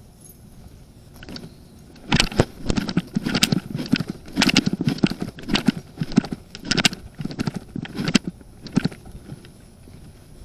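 Quick, uneven footsteps with jangling keys or gear, starting about two seconds in and stopping near the end.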